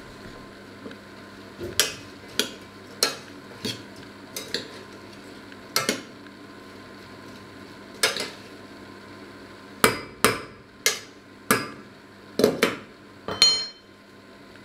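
Stainless-steel saucepan and its lid being handled: a string of sharp metal knocks and clinks at irregular intervals, over a steady low hum. Near the end one clink rings briefly as the lid goes back on the pot.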